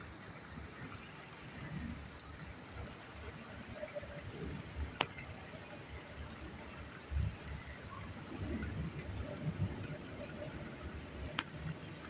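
Steady rain falling, with a few short sharp ticks of drops striking close by and low irregular bumps underneath.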